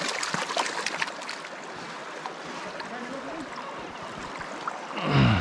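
A mountain trout stream running as an even wash of water, with a few small clicks and knocks in the first second or so. Near the end comes a short, louder voice sound that falls in pitch.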